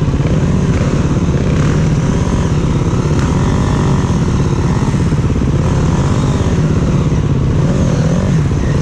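Dirt bike engines running continuously as a rider works a bike up a steep single-track climb, the engine note steady with small rises and falls in pitch.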